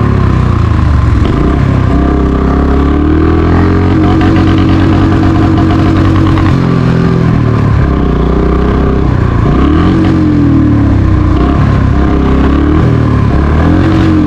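Motorcycle engine running under way, its revs held steady for a couple of seconds, then rising and falling several times.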